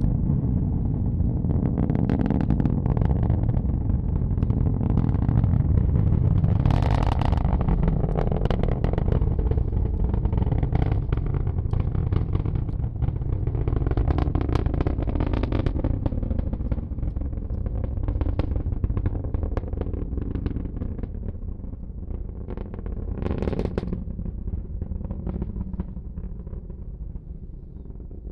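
Falcon 9 rocket's nine first-stage Merlin engines heard from afar as a deep rumble full of ragged crackle, fading slowly as the rocket climbs away. There are sharper crackles about seven seconds in and again near the end.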